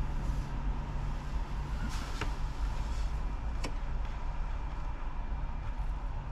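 Steady low rumble of a car cabin with the engine running, with two sharp clicks about a second and a half apart near the middle.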